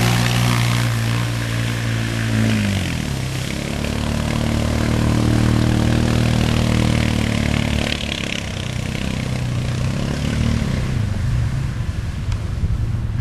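ATV engine running as it ploughs through a flooded creek, with water splashing and spraying. The revs drop about three seconds in, then hold steady, and the engine fades near the end, leaving the rush of the fast-flowing creek water.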